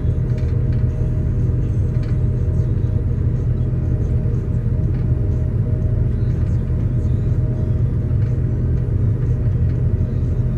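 Steady low engine drone of the machinery running a Grimme potato harvester, heard from inside the cab while it lifts potatoes, with faint light clicks and rattles over it.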